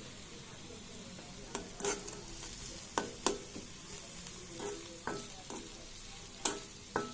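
Food frying in hot oil with a steady sizzle, while a utensil knocks and clinks against the pan or bowl repeatedly, about nine times.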